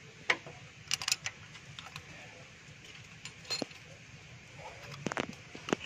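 Steel wrench and screwdriver clinking against a rocker-arm adjusting screw and locknut on a Mitsubishi 4G13 engine during a valve clearance adjustment. Scattered sharp metallic clicks, with a cluster about a second in and a few more near the end, as a clearance set too tight is loosened.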